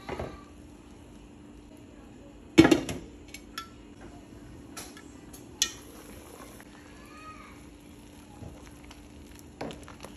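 Cookware clatter: a spoon stirring a stone-coated pot of beans and sausage, with sharp knocks and clinks of the utensil and the glass lid against the pot. The loudest knock comes about two and a half seconds in, with a few lighter clinks after it. A steady low hum runs beneath.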